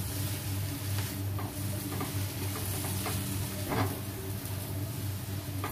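Udon noodles, shredded cabbage and carrot sizzling in a stone-coated wok while a spatula stirs and tosses them, with a few scrapes of the spatula against the pan. A steady low hum runs underneath.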